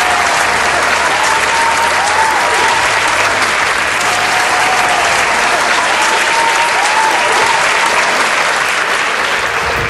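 Large arena crowd applauding steadily, with some cheering above the clapping.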